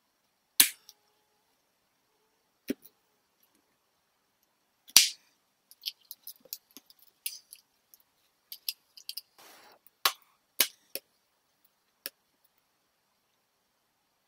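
Panasonic Lumix GH5 camera body handled in gloved hands: scattered sharp clicks and taps as it is turned over and its parts are worked. The loudest clicks come about half a second and five seconds in, with a quick run of small clicks in the middle and a brief soft rustle about nine and a half seconds in.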